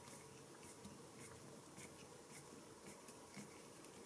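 Faint, irregular light rubbing and ticking of a hand and fingers against the aluminium tubes of an ONO fidget roller as it is rolled in the hand. The roller's ball-bearing tubes themselves make no sound.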